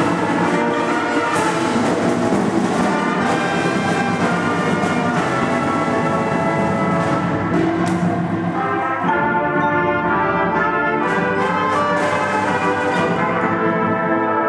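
Marching band's brass section and drums playing loudly. About nine seconds in, the sound thins to held brass chords, with a few sharp percussion hits.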